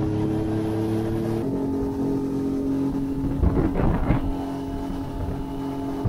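A small 30-horsepower outboard motor running a skiff at speed. The engine note climbs slightly, then settles to a steady tone about a second and a half in. A brief rushing noise comes a little past halfway.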